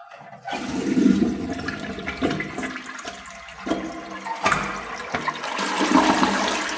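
A commercial restroom flush valve flushing: a loud rush of water that starts about half a second in and surges several times as it runs.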